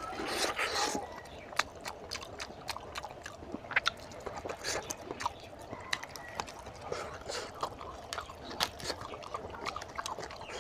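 Close-up wet chewing and lip-smacking of a man eating oily mutton curry with rice by hand, with a louder wet mouthful in the first second. Sticky squishes come from his curry-coated fingers pulling meat off a cooked goat's head.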